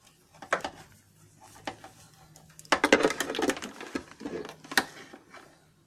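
Handling noise from an AC power adapter and its cord: scattered plastic clicks and knocks, with a brief burst of rattling clicks about three seconds in, over a faint steady hum.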